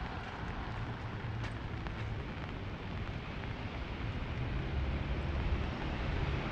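Steady hiss of rain on a city street, with the low rumble of passing traffic that grows louder in the second half.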